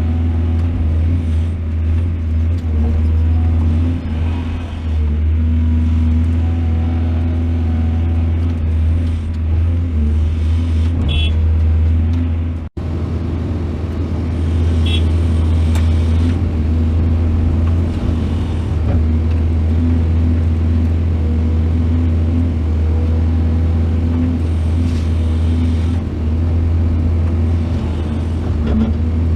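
Heavy diesel machinery engine running steadily with a deep low drone, as an excavator loads soil into trucks; the sound drops out for an instant about 13 s in.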